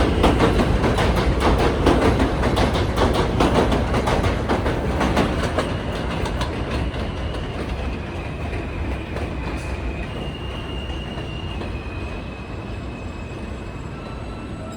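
New York City subway train running past, its wheels clattering rapidly over the rail joints and fading as it moves away. In the second half, high steady tones shift up and down in pitch in steps.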